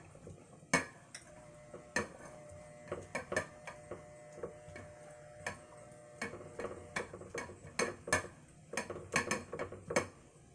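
Silicone spatula stirring melting soap in a saucepan, with light, irregular clicks and taps as it knocks and scrapes against the pan.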